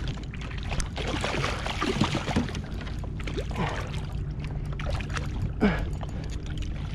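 Water splashing and sloshing around a kayak as a hooked brown trout thrashes at the surface beside the hull while it is steered toward a landing net.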